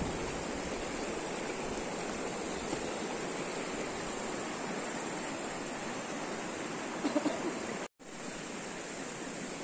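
Shallow rocky river rushing steadily over stones. The sound cuts out for a moment just before eight seconds in, then the water resumes.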